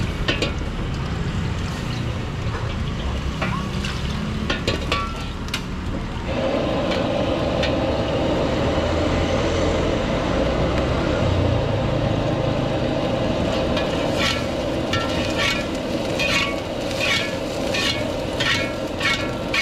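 Wok cooking on a high-output gas wok burner: the burner's low rumble runs throughout, joined about six seconds in by a louder steady hiss. A metal ladle scrapes and strikes the carbon-steel wok, and from about two-thirds of the way through it clanks with a ringing note about twice a second.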